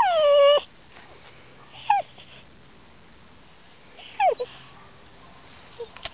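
Small dog crying out in three falling whimpers, the first the longest and loudest, another about two seconds in and a last about four seconds in: the crying-out that follows a fainting fit (syncope) brought on by severe mitral valve heart disease.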